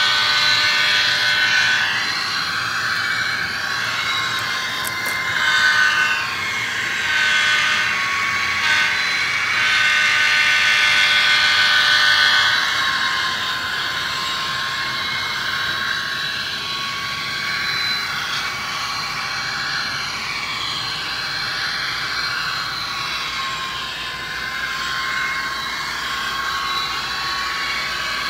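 HO-scale DCC-equipped diesel locomotive running on the track under DC power, giving a steady whine made of several high tones that waver up and down. It is a little quieter after about twelve seconds in.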